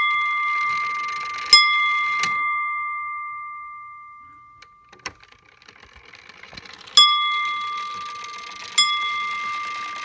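Hand-blown glass bells of an early-1700s Black Forest clock struck by its wooden-headed hammers three times as the strike is run by hand, about a second and a half in, about 7 seconds in and again nearly 9 seconds in. Each strike gives a clear, sustaining ring that fades slowly, with a couple of lighter clicks in between.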